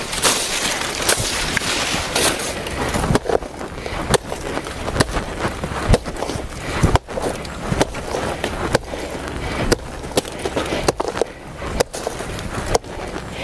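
Dry banana leaves and undergrowth rustling, crackling and snapping as plants are pulled and broken by hand, with many irregular sharp cracks.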